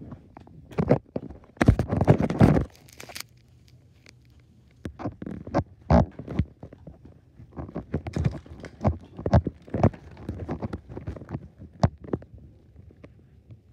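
Handling noise from a handheld phone camera being carried around: a loud rustling scrape about two seconds in, then a run of short soft knocks and rustles.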